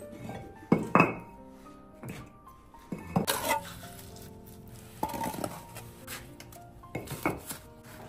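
Steel bricklaying trowel scraping mortar and clinking against a metal mortar basin and bricks: short sharp strikes and scrapes in clusters about every two seconds, as bricks are mortared into place. Soft background music underneath.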